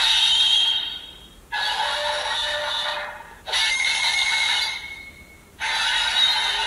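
DX Ultra D Flasher transformation toy playing its electronic sound effects through its small speaker in four short bursts with brief pauses between, the last ending in a rising tone.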